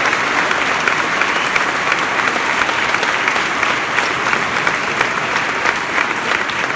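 Crowd applauding and cheering in response to a speaker's applause line, tapering off near the end.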